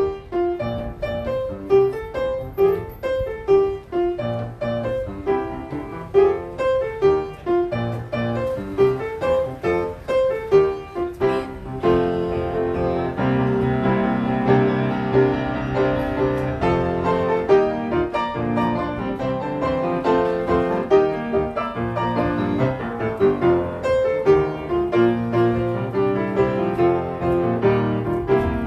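Grand piano played solo, notes and chords in a steady rhythm. About twelve seconds in the playing turns fuller and more sustained.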